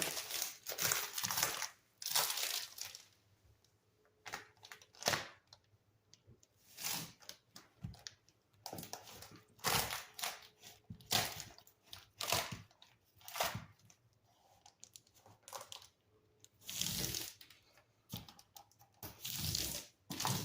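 Sheets of Simple Mat adhesive tile-setting mat and their backing being handled, making irregular bursts of crinkling and tearing.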